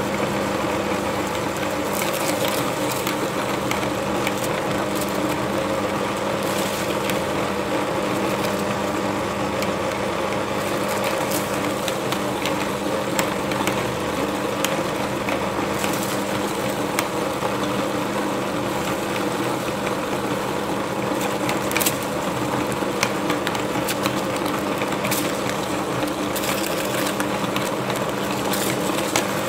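Motor-driven aluminium meat grinder running with a steady hum as it grinds bread into crumbs, with scattered sharp clicks throughout.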